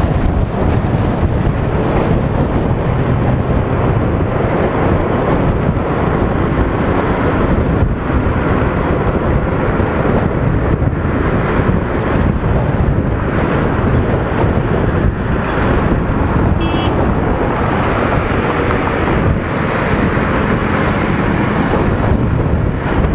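Wind noise buffeting the microphone of a moving motorcycle, over the bike's engine and tyre noise on the road. A very short high beep sounds about two-thirds of the way through.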